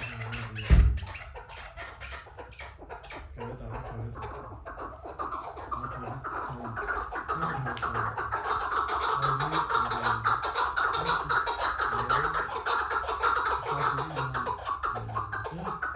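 Chukar partridge calling: a long run of fast repeated notes that builds up about four to five seconds in and carries on steadily. A single loud thump just under a second in.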